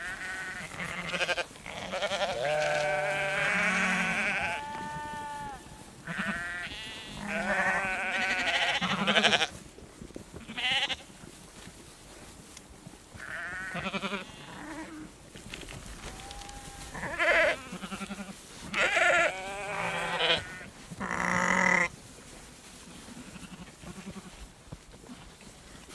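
Herd of sheep and goats bleating, many calls overlapping in the first half, then scattered calls that die away near the end.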